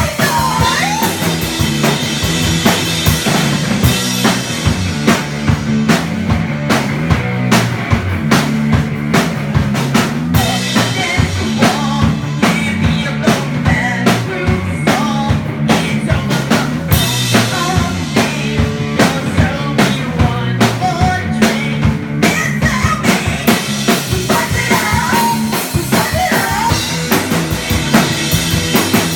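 Instrumental band music: a drum kit keeps a steady rock beat with snare and bass drum over a repeating bass line.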